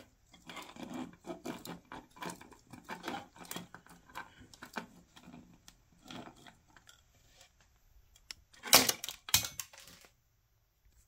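A plastic HG Gundam Barbatos Lupus model kit being handled and posed: a run of small plastic clicks and rattles from its joints and parts, then two louder sharp knocks against a hard surface about nine seconds in.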